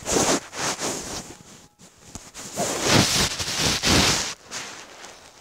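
Handling noise from a phone being moved about in the hand: loud rustling and rubbing over the microphone in irregular bursts for about four seconds, dying down near the end.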